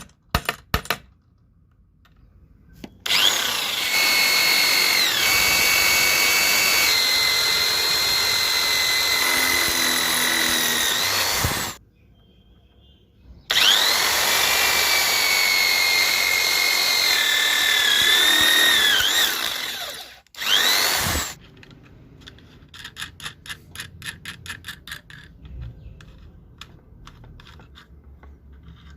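Electric drill running in two long runs and a short burst near the end, its whine sweeping up at start-up, sagging now and then as it works through wood, and winding down at each stop. A fast run of quieter clicks follows.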